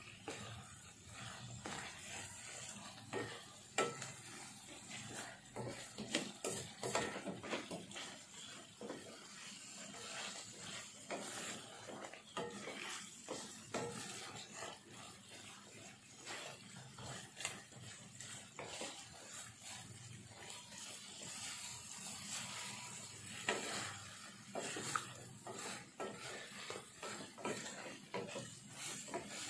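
Wooden spatula stirring and scraping beef rib pieces through thick rendang spice paste in a nonstick frying pan, with irregular scrapes and knocks against the pan over a low sizzle of the frying paste.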